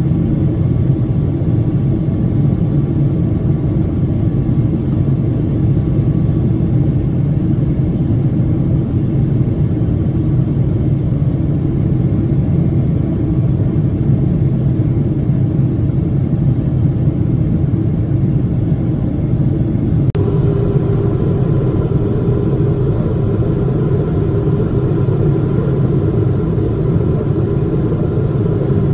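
Steady cabin rumble of a Boeing 777-300ER in flight, heard from a window seat beside its GE90 engine: engine noise and airflow over the fuselage. About two-thirds of the way through, the sound changes suddenly and a steady hum of higher tones joins the rumble.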